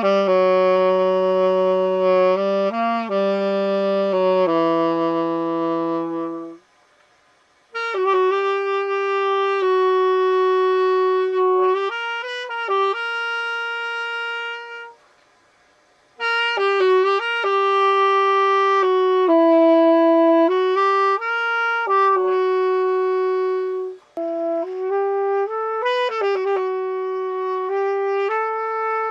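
Saxophone played solo: a slow melody of long held notes in three phrases, with short breaks about seven and fifteen seconds in.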